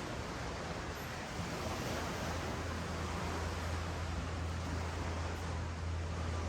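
Ocean surf washing up the beach as a steady rushing noise, with a steady low hum underneath that grows stronger about a second and a half in.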